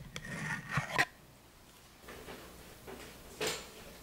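A few light clicks and knocks, the sharpest about a second in, with one more short knock near the end.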